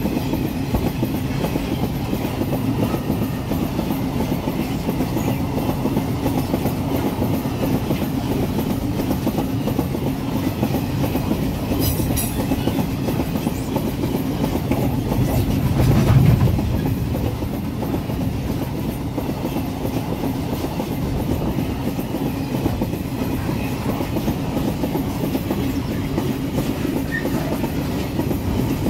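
Ore-train wagons rolling past close by: a steady rumble and clatter of steel wheels on the rails, with a louder low surge about 16 seconds in.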